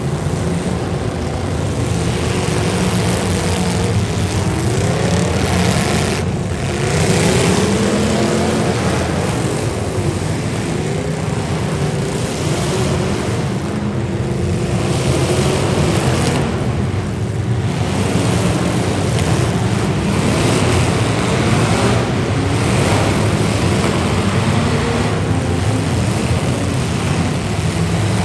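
Several demolition derby cars' engines running and revving at once, their pitches rising and falling against each other over a steady loud din.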